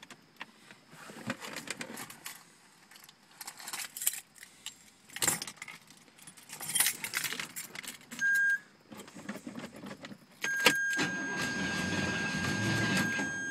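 Keys jangling and handling noises, a short electronic chime about eight seconds in, then the starter suddenly cranking the 1977 Corvette's 350 V8 about ten and a half seconds in, with a steady warning tone sounding over it. The engine turns over without starting, a no-start the owner puts down to bad fuel supply from the tank after a new fuel filter did not help.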